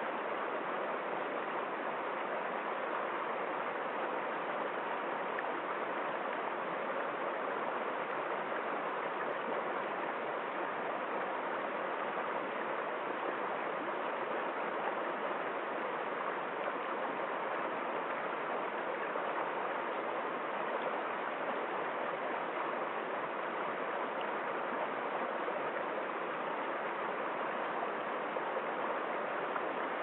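Rocky stream of water flowing over stones and small cascades, a steady rushing and splashing.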